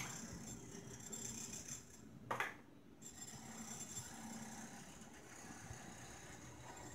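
Faint scraping of a table knife spreading green chutney across a slice of bread, with one brief clink a little over two seconds in.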